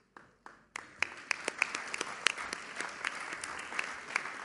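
Audience applauding: a few scattered claps at first, then full, steady applause from just under a second in.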